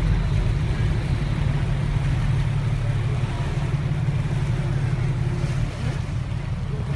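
Boat engine running with a steady low drone, over the rush of water and wind.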